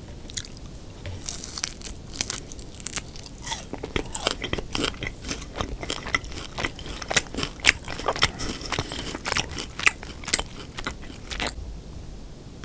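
Close-miked crunching and chewing of deep-fried battered pork (sweet and sour pork), a dense run of sharp crackly crunches that stops just before the end.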